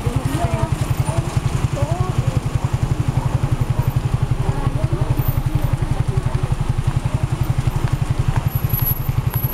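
An engine close by running at a slow, steady speed, a low throbbing of about a dozen even pulses a second, with faint voices in the background.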